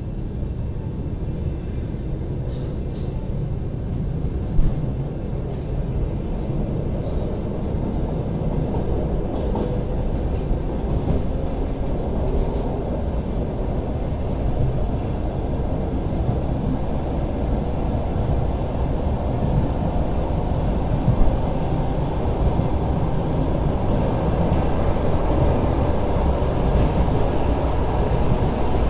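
ED9M electric multiple unit running along the line: a steady rumble of wheels and running gear that grows gradually louder, with two short sharp knocks, one about five seconds in and one past the twentieth second.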